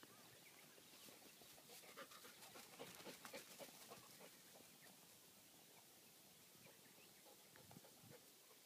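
Near silence, with the faint, quick breathing of a dog close by for a few seconds, starting about a second in.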